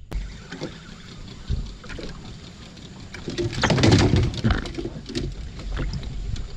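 Irregular knocks and clatter of handled fishing rods and gear against a small boat's hull, with a louder heavy bump and rustle about three and a half seconds in as the angler lunges to grab a rod that a bite is pulling.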